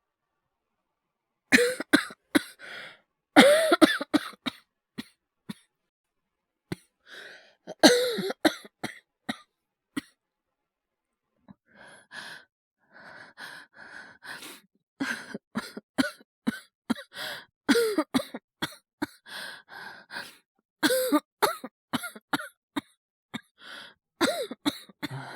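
A man's acted coughing fit, performed as a feverish cold. Several harsh clusters of coughs come first, then after a short pause a long run of quick, short coughs until the end.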